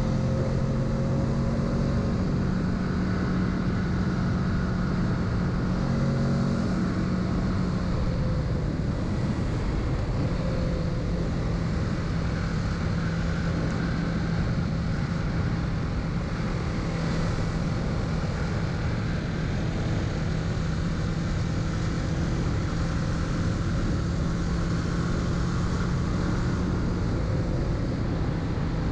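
Kawasaki Z650's parallel-twin engine running under way, heard from the rider's position. Its note changes once about seven seconds in, then holds steady.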